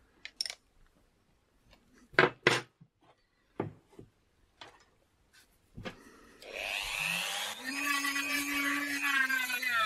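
Handling clicks and knocks as a sanding drum is fitted to a rotary tool, the loudest two close together a little over two seconds in. About six and a half seconds in the rotary tool's motor starts with a rising whine and then runs steadily, with a gritty hiss as the steel end of a bicycle spoke is sanded thinner against the drum.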